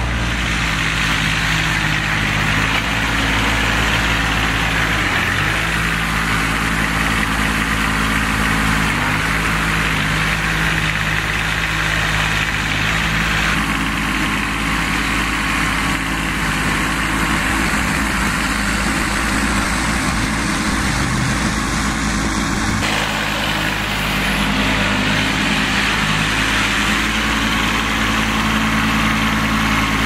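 Small compact farm tractor's engine running steadily while it is driven, its loudness barely changing.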